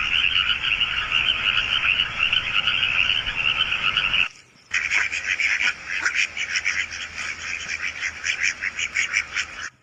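Frogs croaking. A dense run of calls breaks off a little after four seconds, and after a short pause a faster run of rapid pulsed croaks follows and stops just before the end.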